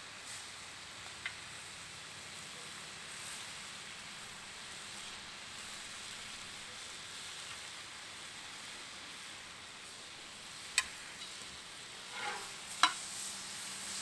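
Cut-up steak sizzling steadily on a Blackstone flat-top griddle. Near the end come a few sharp metal clicks and a short scrape from the spatulas working the meat.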